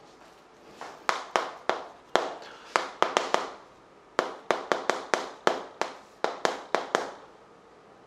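Chalk writing on a blackboard: an irregular run of sharp taps and knocks as the chalk strikes the board, about twenty in all. The taps start about a second in and stop about a second before the end.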